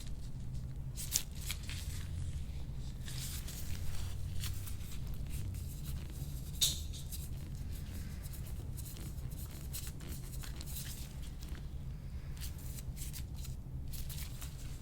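Light scraping and scattered small clicks as a chiropractor works over a patient's foot and toes with her hands and a tool, with two sharper clicks, about a second in and near the middle, over a steady low hum.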